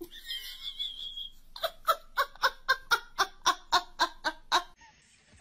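Laughter: a steady run of about a dozen evenly spaced "ha" bursts, about four a second, after a high thin squeal in the first second and a half.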